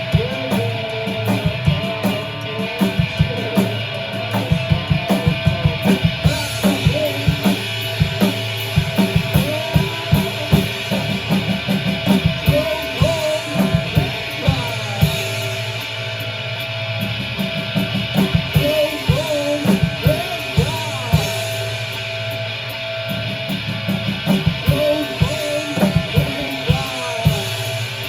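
A rock band playing live: drum kit beating a steady rhythm under guitars.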